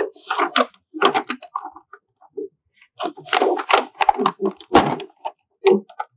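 Handling noise as hands pull and smooth the plastic DTF transfer film at the printer's pinch rollers: irregular rustles, crackles and knocks, busiest about a second in and again from about three to five seconds in.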